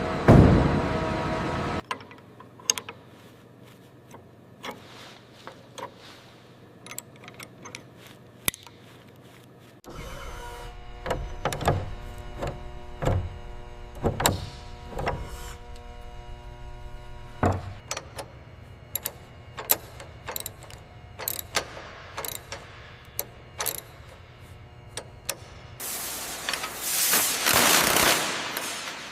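Mechanical workshop sounds: a loud rush at the start, then scattered sharp clicks and ticks. About ten seconds in a steady hum sets in under many more clicks, and a loud hissing rush follows near the end.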